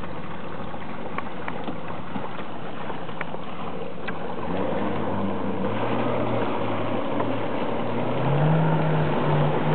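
Wind and water rushing along a small wooden sailing dory. About halfway through, a passing motorboat's engine drones in, its pitch stepping up and growing louder near the end.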